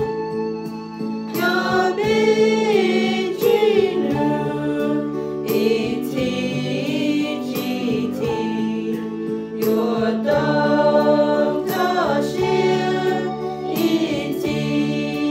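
A small group of young voices singing a hymn together from their books, over steady held keyboard or organ chords.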